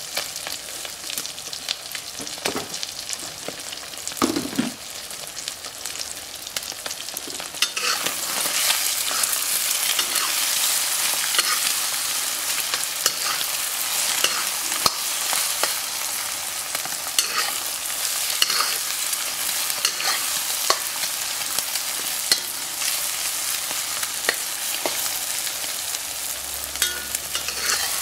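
Eggs, sausage and peppers frying in oil in a black wok: a steady sizzle that gets louder about eight seconds in. A metal spatula scrapes and taps against the wok again and again as the omelette is broken up and stirred.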